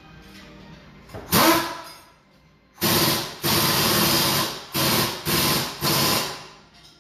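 Air-powered workshop tool run in short trigger bursts: one about a second in, then five more in quick succession, each a loud hissing rattle. It fits work on the car's wheel and suspension in a tyre shop.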